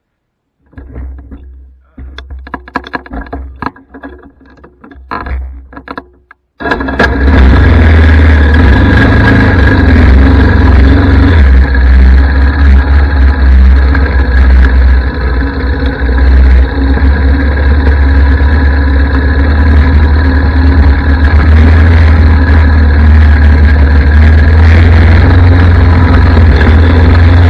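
Yamaha ATV's single-cylinder four-stroke engine running loud and steady as the quad rides along the trail. It cuts in suddenly about six and a half seconds in, after a stretch of quieter, uneven sounds.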